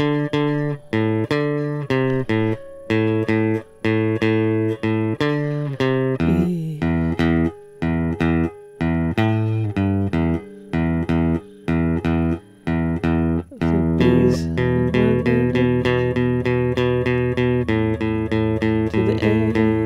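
Stratocaster-style electric guitar playing a one-finger blues rhythm riff in A: repeated picked single notes on the low strings in a steady rhythm, moving in pitch through the chord changes, with short stops between phrases.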